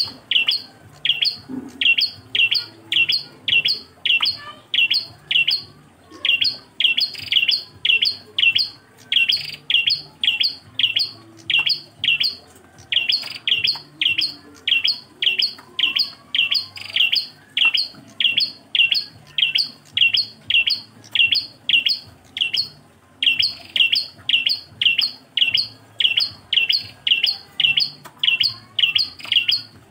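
Prenjak klawu singing a single repeated call type: one short, high chirp given over and over at about two a second, breaking off briefly twice.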